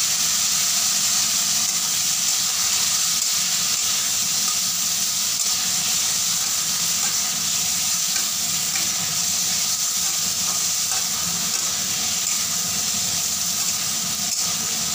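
Prawns frying in hot mustard oil in a kadai, a steady sizzle, with a spatula stirring and turning them.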